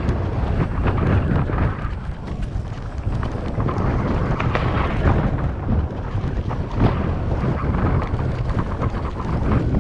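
Wind buffeting the camera microphone over the rumble of mountain bike tyres rolling down a dirt singletrack, with frequent small rattles and knocks as the bike goes over roots and bumps.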